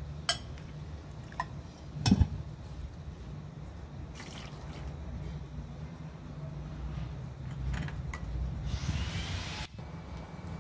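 A few sharp clinks of bowls and a glass jug being handled, then water poured from the jug over sliced red onions in a mesh strainer: a short pour midway and a hissing pour about a second long near the end. A steady low hum runs underneath.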